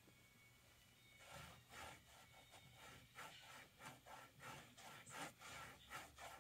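Faint scratchy rubbing strokes of a painting tool or hand working colour into a textured painting surface, a quick run of two or three strokes a second that starts about a second in.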